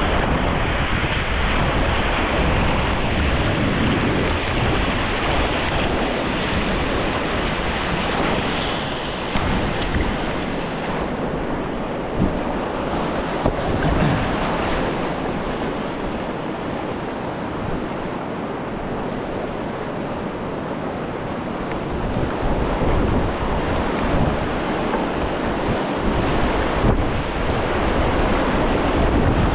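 Whitewater rapid rushing steadily, with wind buffeting the microphone and a few sharp splashes in the middle.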